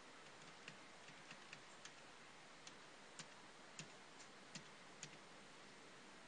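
Faint keystrokes on a computer keyboard: about ten sharp clicks at uneven spacing over a low hiss.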